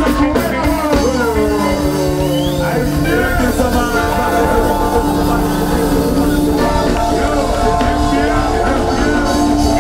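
A live band playing loud, steady music: drum kit and bass under long held notes.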